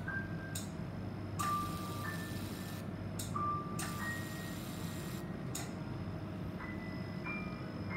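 Fractional CO2 laser machine sounding a series of short electronic beeps at shifting pitches as it fires, with short bursts of hiss over the unit's steady low hum.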